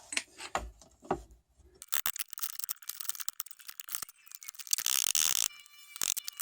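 Rapid metallic ratcheting clicks from a hand tool being worked to close a small gap in a bent metal wiper-arm bracket. A few scattered clicks come first, then a dense run starts about two seconds in and is loudest around five seconds in.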